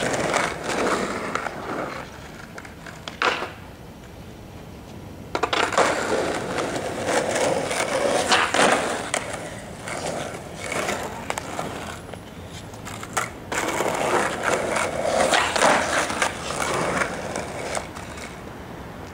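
Skateboard wheels rolling over street pavement in several passes that come and go, with a few sharp clacks of the board hitting the ground, about three, eight and thirteen seconds in.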